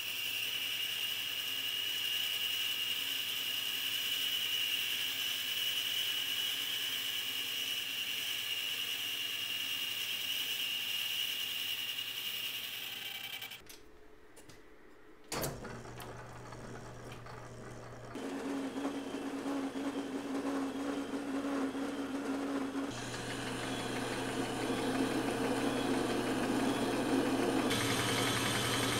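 Metal lathe running and cutting a cast iron pulley, with a steady high whine for about the first 13 seconds. The sound then drops away as the lathe stops. After a sharp click it starts up again and runs steadily with cutting noise.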